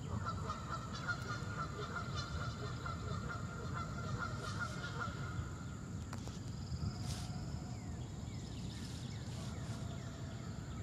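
Geese honking across the pond, a quick run of honks in the first half and fewer later.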